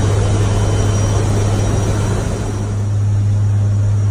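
Steady turboprop drone inside the flight deck of an Air Force Reserve WC-130J Hercules in flight: a deep, even propeller hum under a loud hiss of engine and air noise.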